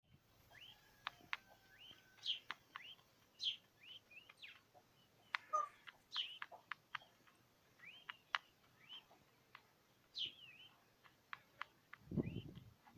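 Twenty-day-old peachicks peeping: many short, high chirps that glide up and down, mixed with sharp clicks of beaks pecking at a plastic feed tray. A brief low rumble comes near the end.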